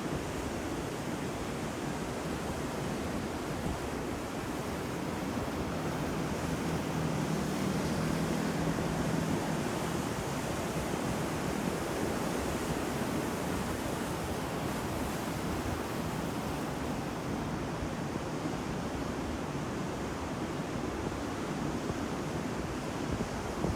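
Ocean surf: waves breaking and washing in a continuous rushing noise, swelling a little louder a quarter of the way in before easing back.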